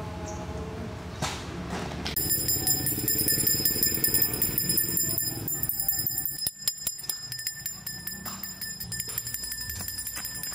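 A small handbell rung rapidly and continuously from about two seconds in, like a street vendor's bell advertising ice drop.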